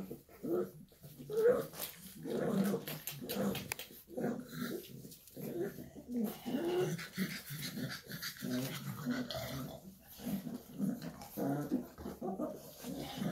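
Shar Pei puppies making a continual run of short, low whines and grunts as they crowd around and nuzzle their mother.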